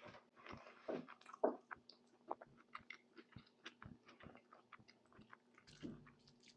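A person chewing food close to the microphone: many small, irregular wet mouth clicks and smacks, with a few louder bites in the first second and a half, over a faint steady hum.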